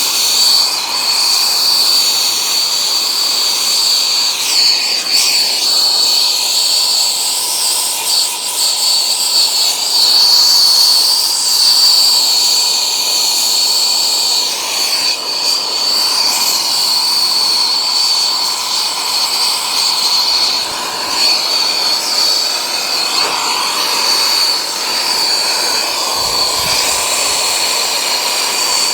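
Compressed gas blowing through an air-conditioner evaporator coil to purge leftover oil: a loud, steady rushing hiss with a high whistle riding on it.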